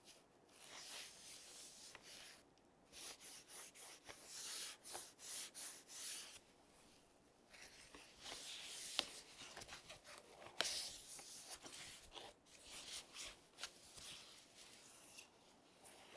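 Hands rubbing and rustling packaging material while the keyboard is unpacked, in irregular scrapes, with light clicks and two sharper knocks a little past the middle.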